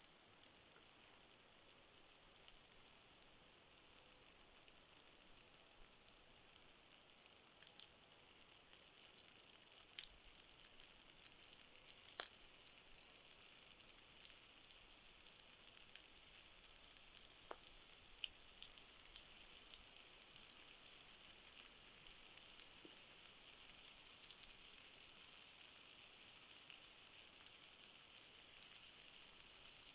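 Food frying quietly in a small pan over a campfire: a faint, steady sizzle that grows a little stronger in the second half, with scattered small clicks and one sharper tick about twelve seconds in.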